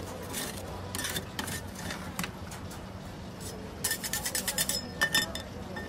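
Metal spatulas scraping and tapping on the frosted steel freezing plate of a rolled-ice-cream machine: scattered clinks, with a quick run of taps about four seconds in and a few more soon after. A steady low hum runs underneath.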